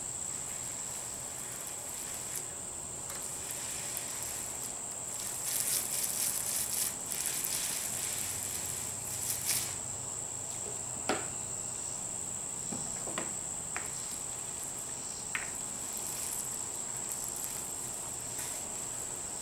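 A paint roller spreading DuraTex roller-grade texture coating over a speaker cabinet, heard as soft hissy passes, with a few sharp clicks in the second half. A steady high-pitched whine runs underneath throughout.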